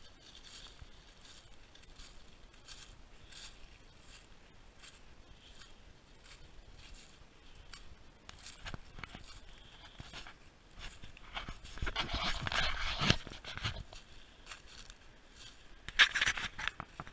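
Footsteps crunching through dry fallen leaves at a steady walking pace, with a louder scraping rustle for about two seconds past the middle and a short sharp one near the end.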